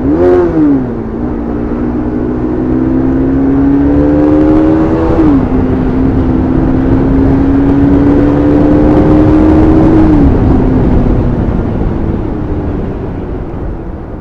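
Motorcycle engine pulling through the gears: a quick rev at the start, then the pitch climbs slowly and drops sharply at gear changes about five and ten seconds in, before the throttle eases off and the sound fades near the end.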